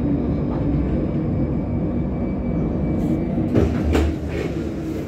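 Steady low rumble heard inside a tram as it slows into a stop, with a couple of clunks about three and a half to four seconds in. The rumble is a little quieter after that, as the tram comes to rest at the platform.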